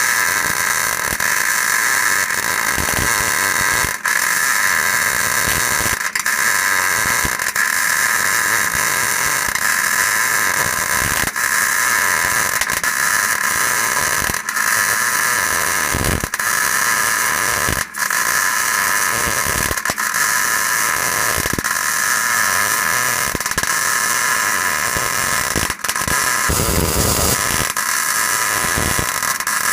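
Small MIG welder laying a long weld bead on a steel truck bed, a steady crackling hiss broken off only for brief moments a few times.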